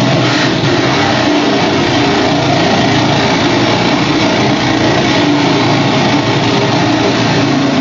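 Amplified pocket calculator pushed into a spinning electric fan, the fan chattering against it in a loud, steady wall of dense rattling noise.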